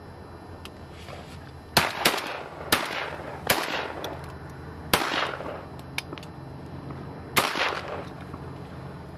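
Shotguns fired at a flock of ducks: about six blasts from several guns in an irregular volley, starting about two seconds in, each followed by a rolling echo.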